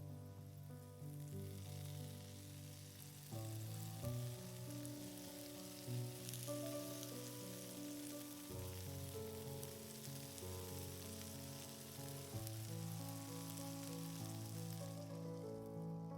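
Food sizzling as it fries in hot fat, a steady hiss that fades out near the end, over background music with sustained notes.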